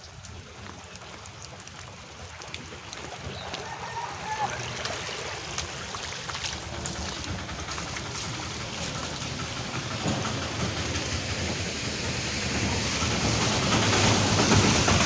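Rainwater running across a paved lane: a steady rushing noise that grows louder toward the end, with scattered light taps and drips.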